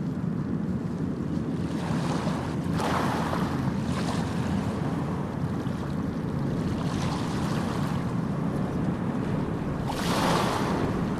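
Sea waves washing ashore in a steady low rush, with two louder, hissier breaks: one a few seconds in and one near the end.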